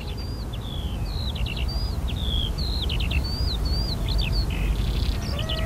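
Small birds chirping, many short calls in quick succession, over a steady low rumble. Music comes in near the end.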